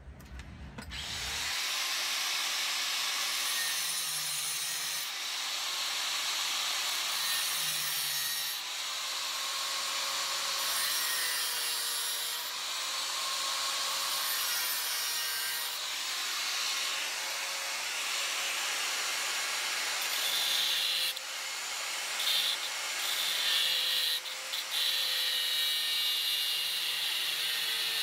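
Electric angle grinder running and grinding steel held in a vise: a steady motor whine under a loud grinding hiss. Near the end the sound drops out briefly several times as the disc comes off the metal.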